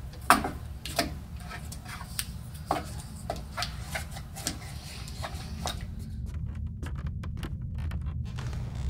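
Small sharp clicks and scrapes of black vinyl electrical tape being pulled off its roll and pressed over a wall light switch, over a low steady rumble.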